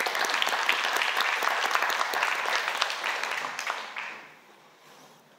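Audience applauding, a dense patter of many handclaps that dies away about four seconds in.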